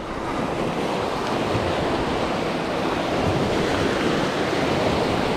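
Ocean waves washing and breaking in a steady wash, with wind buffeting the microphone.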